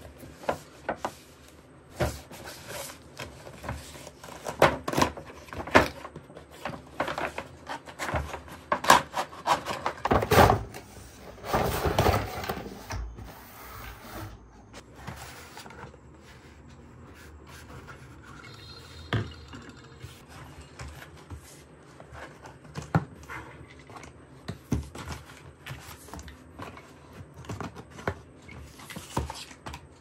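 Cardboard toy box and its packaging being handled: flaps opened, contents pulled out and plastic parts set down on a table, a string of scrapes, rustles and light knocks, loudest about ten to thirteen seconds in.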